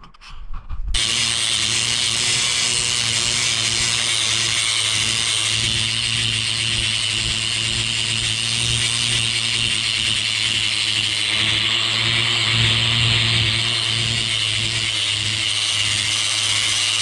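Angle grinder with a knotted wire cup brush scouring a rough-sawn wooden beam, bringing up the grain. It starts about a second in and then runs steadily.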